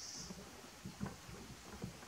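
Faint, scattered light taps and knocks of hand tools and screws being handled against car body parts, about four or five in two seconds, with a brief high hiss at the very start.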